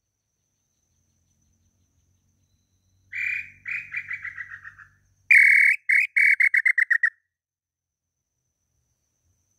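Whistled tinamou notes from a throat-type hunter's call imitating the inhambu pé-roxo (tataupa tinamou). About three seconds in comes a run of notes that speeds up and falls slightly in pitch as it fades. About two seconds later a louder group follows: one long note, then a quick run of short notes.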